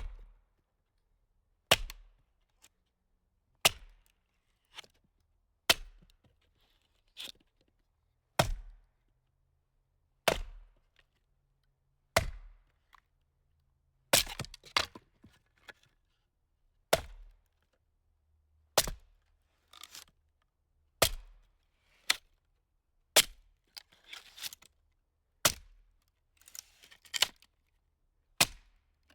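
Sharp cracking strikes, one about every two seconds, some followed by a few smaller clicks, with quiet in between.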